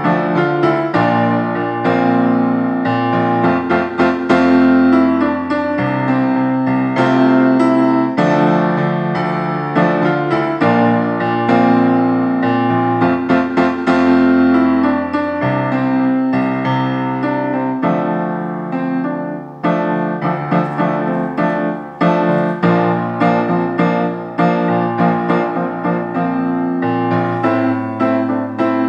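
Piano keyboard playing a song accompaniment with no singing: sustained chords, changing every second or two, over a steady bass line.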